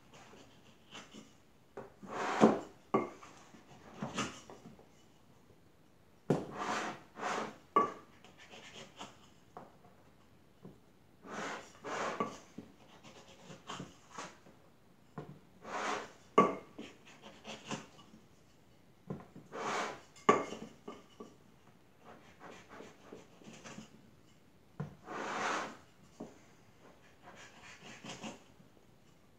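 A wooden straightedge scraping and knocking across soft clay and the rim of a plaster tile mold, striking off the excess clay. The strokes come in short bursts every few seconds.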